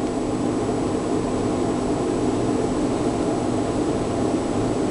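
A steady mechanical hum with a rush of air, swelling in just before and then holding level throughout.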